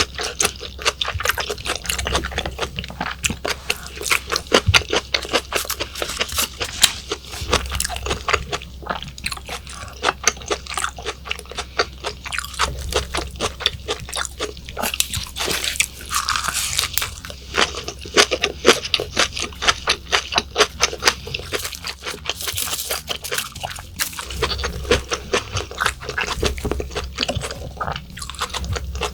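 Close-miked chewing of raw yellowtail sashimi: a steady run of wet mouth clicks, smacks and crunches.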